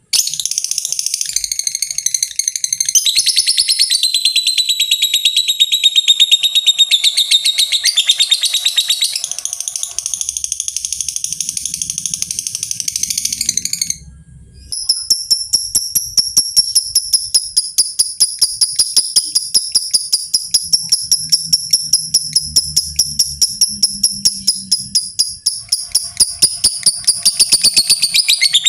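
Lovebird giving long, rapid, high-pitched chattering trills (the 'ngekek panjang' of a fighter lovebird), two long bouts with a brief break about halfway through. This is the aggressive challenge call used to provoke rival lovebirds into answering.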